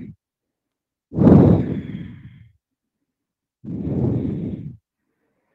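A woman's deep, audible breaths close to the microphone during a stretch. There is a long, loud breath about a second in that fades away, then a shorter breath near four seconds in.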